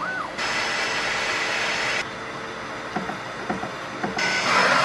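Bambu Lab 3D printer running. A short stepper-motor whine rises and falls at the very start. Then the fans come on at full speed with a rushing hiss that cuts off abruptly about two seconds in. A few light mechanical clicks follow, and the fan rush returns louder near the end.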